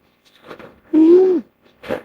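Mixed hippo and bear sound effects used as the call of a hippo-bear hybrid: a breathy exhalation, then one short pitched animal call of about half a second that dips in pitch at its end, then a brief sharp burst of breath near the end.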